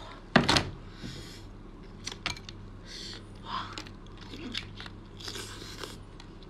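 A person biting into and chewing cooked lobster tail meat, with a loud sharp crack about half a second in and scattered smaller clicks after it.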